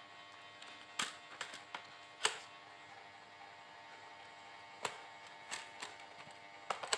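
Scattered small clicks and taps of a screwdriver and screws while the Dell Latitude 7390's bottom cover is being refitted: a quick run of clicks about a second in, a sharper one a little later, then a few more near the end, over a faint steady hum.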